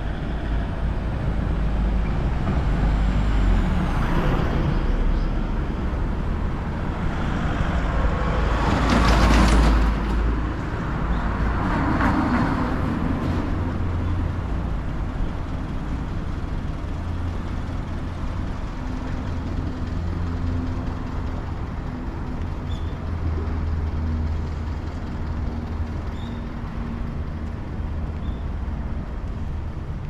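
Road traffic on a city street: a steady low rumble of vehicles, with several passing by and one loud pass about nine seconds in.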